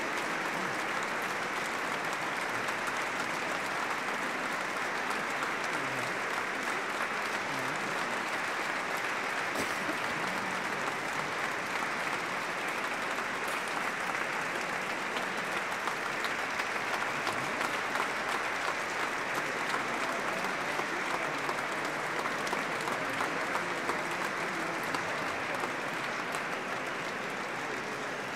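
Audience applauding, a long steady round of clapping that eases off a little near the end.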